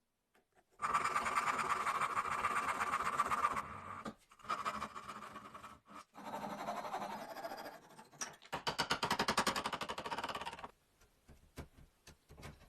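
A woodworking tool working wood in several bursts, each a rapid, even rattle of many strokes a second, with short breaks between them.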